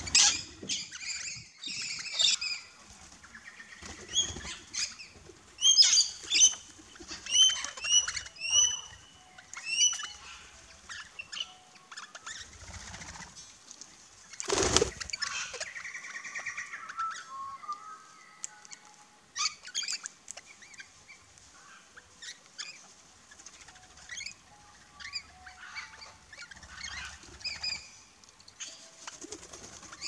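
Parrots' wingbeats as the flock flushes off the ground, ending just as it begins. Then scattered high, sharp bird calls, a run of repeated chirps among them, broken about fifteen seconds in by another brief, loud flurry of wingbeats as a parrot flies in.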